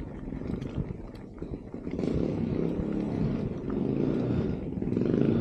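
A motor engine running continuously, its pitch wavering and its level growing a little louder near the end.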